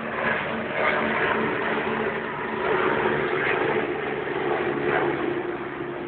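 Military helicopter running, its engine giving a steady whine over a rough rushing noise that swells slightly now and then.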